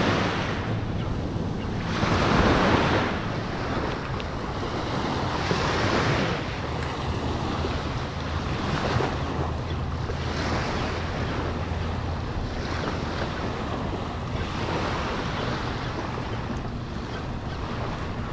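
Small waves breaking and washing up a sandy beach, surging in every two to three seconds, with wind rumbling on the microphone.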